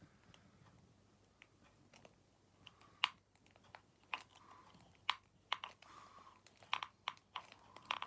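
Plastic correction tape roller pushed and pressed across a paper card: irregular sharp clicks and short scratchy rubs from the roller's mechanism and tape tip, sparse at first and coming more often and louder about three seconds in.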